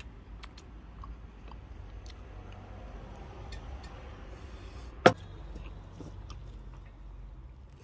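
A person chewing a mouthful of palak gosht, mutton cooked in spinach, with faint small clicks and one sharp click about five seconds in.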